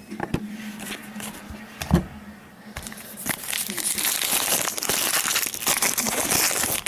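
Foil trading-card pack wrapper crinkling as it is torn open and handled, with a few light clicks of cards being handled in the first two seconds; the crinkling turns dense and continuous from about three seconds in.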